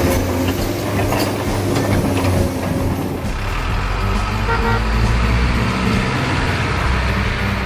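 Steady truck engine rumble, loud and continuous.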